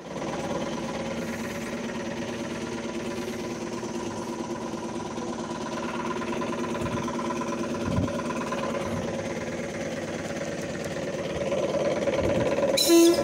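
ED9M electric multiple unit moving past close by: a steady electric hum from its running gear with an odd thump from the wheels, about eight seconds in. A short, loud burst near the end stands out above the hum.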